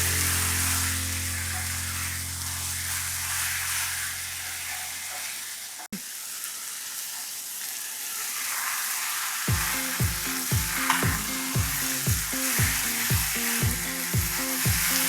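Chicken pieces frying in oil with onion-tomato masala in a pan, a steady sizzle with stirring, under background music whose beat picks up about two-thirds of the way through.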